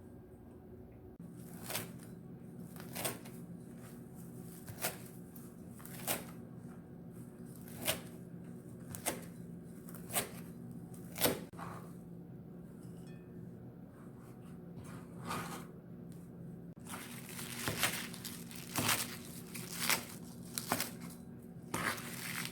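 A series of short tearing or rustling strokes, roughly one every second or so and coming closer together in the last few seconds, over a steady low hum.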